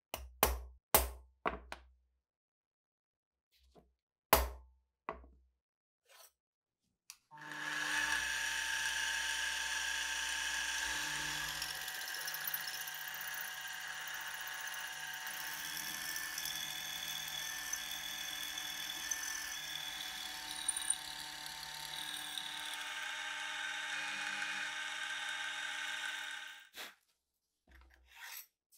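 A few sharp hammer taps on a centre punch marking a metal plate, then a bench drilling machine running as a twist drill bores through the plate for about twenty seconds, stopping shortly before the end.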